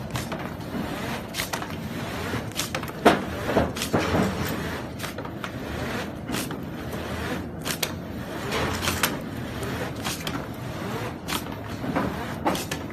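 Semi-automatic carton box folder-gluer running with a steady mechanical noise as cardboard blanks travel along its belts, with frequent sharp clacks at irregular intervals, the loudest about three seconds in.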